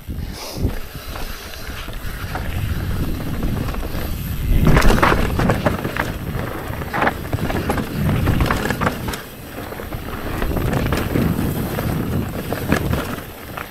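Mountain bike descending dry dirt and rock singletrack: knobby tyres rolling and crunching over the ground, wind buffeting the camera microphone, and scattered sharp clicks and rattles from the bike over rough spots. The noise swells loudest about five seconds in.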